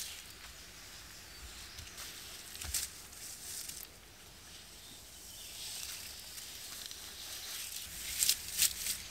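Rustling of conifer sprigs and twigs being handled and pushed about on the floor of a debris shelter made of sticks, with a sharp crackle about three seconds in and two louder ones near the end.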